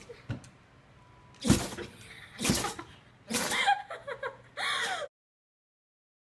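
A pet sneezing sharply: two sudden sneezes about a second apart, then a short voice with a bending pitch and one more burst. The sound cuts off abruptly about five seconds in.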